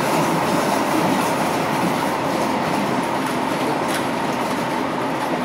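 Steady running noise of a Stadtbahn light-rail car heard from inside the car, with wheels rumbling on the rails. A few faint clicks sound through it, and it gets a little quieter towards the end.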